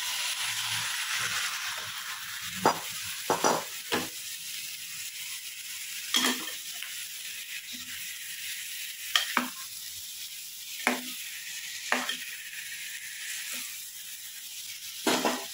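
Boiled mixed vegetables tipped into hot fried masala in a pan, sizzling most strongly in the first couple of seconds. Then they are stirred with a steel ladle: a series of short scrapes and knocks of the ladle against the pan over a low sizzle.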